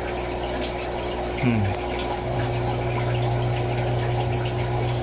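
Aquarium air pump running with a steady hum, and water bubbling from the sponge filter it drives.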